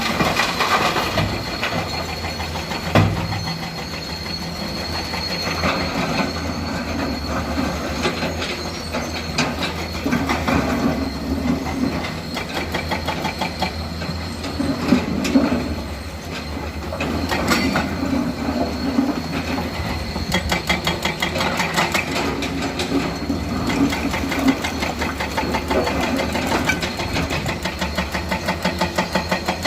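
Komatsu PC200 hydraulic excavator at work loading broken stone: the diesel engine runs steadily under metallic scraping and rattling, with several sharp knocks of rock and steel.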